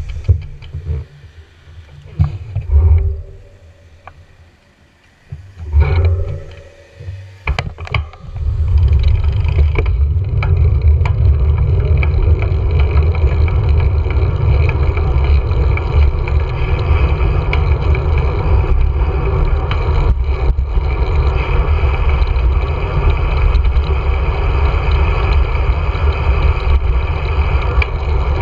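Wind buffeting an action camera's microphone on a bicycle descending a paved road, with tyre and road noise under it. It comes in uneven gusts with quieter gaps for the first eight seconds or so, then settles into a steady, loud, low rumble.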